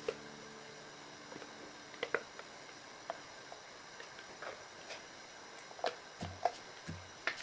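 Thick blended pork paste sliding out of a blender jug into a stainless steel bowl: faint wet squishes and plops, with scattered soft clicks and taps of the jug on the bowl. The taps and plops come more often near the end.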